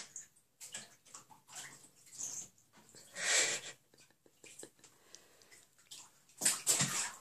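Two bobcats pawing and scrabbling in a bathtub after toy balls: irregular scuffs and knocks, with two louder bursts, one about three seconds in and a longer one near the end.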